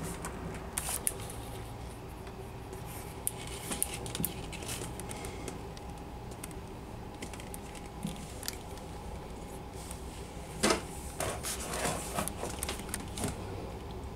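Clicks, taps and rubbing from a handheld camera being moved about, over a steady low hum. A cluster of louder clicks and scrapes comes about two thirds of the way in.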